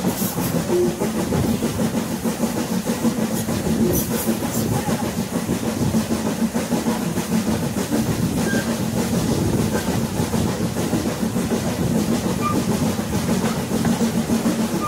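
Passenger railroad coach rolling along the track: a steady rumble and rattle from the car, with a few sharp clicks from the wheels and couplings.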